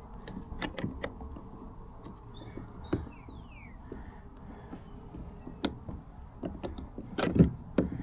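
Scattered clicks and knocks of a socket wrench, extender and bolt hardware being worked against a kayak's plastic transom mount as a loose lock nut is tightened, with a short high squeak about three seconds in and a cluster of louder knocks near the end.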